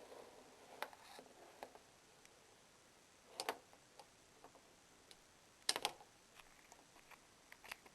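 A few faint, scattered clicks and knocks, with a louder cluster about three and a half seconds in and another near six seconds.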